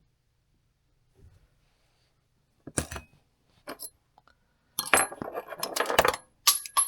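Small hard parts clicking and clinking together as they are handled: a couple of sharp clicks about three seconds in, then a dense run of clinks with a light metallic ring over the last two seconds.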